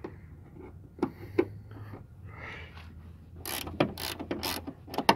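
Ratcheting wrench clicking while backing out the bolts of a sliding-door roller bracket. A couple of single clicks come first, then a quicker run of clicks over the last two seconds.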